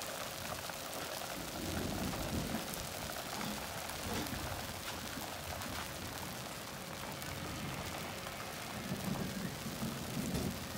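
Steady hiss of light rain falling, with a low rumble swelling about two seconds in and again near the end.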